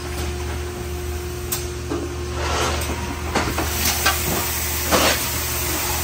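Industrial machinery running with a steady hum, cut by several short hisses of compressed air between about two and five seconds in.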